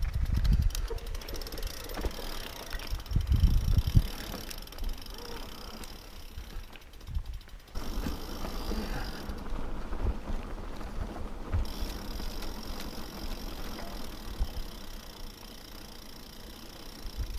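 Mountain bike riding over a dirt and rock trail: tyre and trail noise with scattered knocks and rattles of the bike, and wind buffeting the microphone in heavy gusts about a second in and around the third second.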